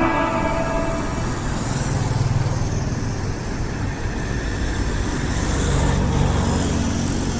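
Steady low engine rumble, swelling slightly twice, with the tail of background music fading out in the first second.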